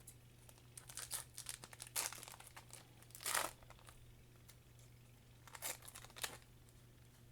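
Foil Pokémon booster pack wrapper crinkling and being torn open, in scattered short rustles, the longest and loudest about three seconds in and more a couple of seconds later.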